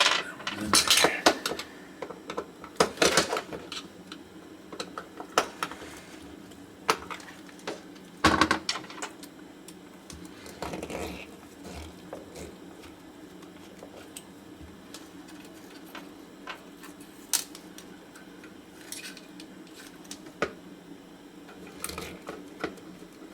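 Small metal tools and parts clicking and clattering on a workbench while a CB amplifier is taken apart, with louder rattles about one, three and eight seconds in. A low steady hum runs underneath.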